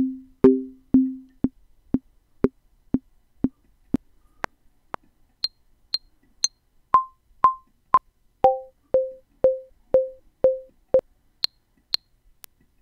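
Logic Pro X metronome clicking through its Klopfgeist instrument at 120 beats per minute, two clicks a second. The click sound changes every few beats as presets are stepped through: low pitched thuds at first, then high ticks, mid-pitched blips, lower blips, and sharp high ticks near the end.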